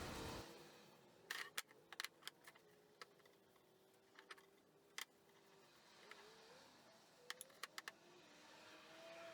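A rubbing noise stops about half a second in, leaving near silence with scattered light clicks and taps of small handling.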